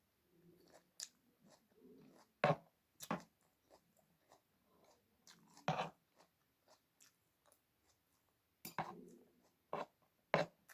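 A person chewing crunchy food close to the microphone, with about six sharp crunches spread through the chewing.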